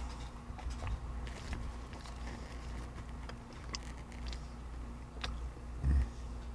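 A person eating ice cream from a tub with a metal spoon: scattered small clicks of the spoon and chewing, over a steady low hum inside the car. A short low thump comes near the end.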